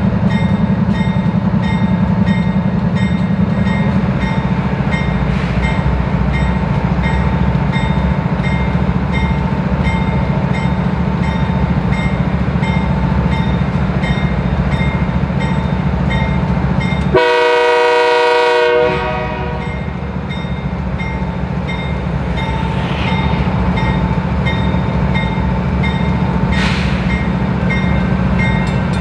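Diesel locomotive running steadily with rail noise. Just past the middle comes one air-horn blast, a chord of several notes lasting about a second and a half.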